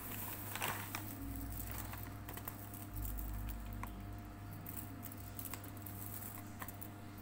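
Crisp fried shallots crackling as a hand scoops and stirs them inside a plastic bag, with the bag's plastic crinkling; a denser rustle just under a second in. A steady low hum runs underneath.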